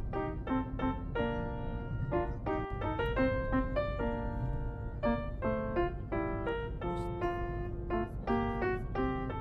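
Background music: a piano playing a quick melody of short, separate notes.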